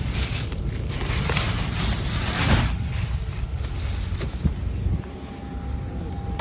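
Rustling, crinkling and knocking of plastic-wrapped grocery packages being handled and shifted, over a low rumble of wind on the phone's microphone. About five seconds in the handling noise drops away and a faint steady tone is left.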